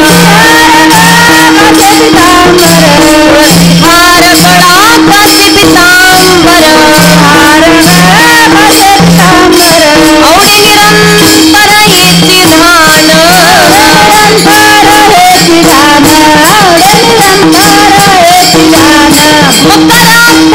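Marathi kirtan music: a woman sings long, ornamented wordless melodic runs with wavering pitch over a steady rhythm of pitched drum strokes and jingling cymbals.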